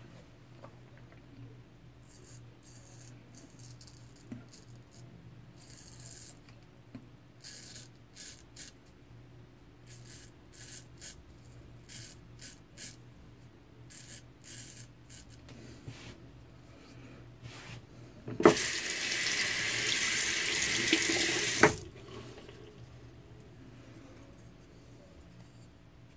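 A J.A. Henckels straight razor scraping through lathered beard stubble in many short strokes, a few of them longer. Then a water tap runs for about three seconds, with a sharp click as it starts and stops.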